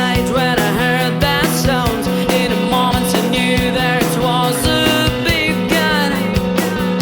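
Rock-style background music with guitar and a steady beat, with a melody line that sounds like singing.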